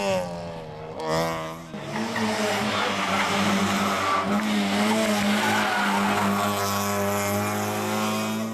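Toyota Yaris rally car engine blipping and revving in short bursts through a hairpin. About two seconds in, it gives way to another car's engine held at a steady high note under full throttle.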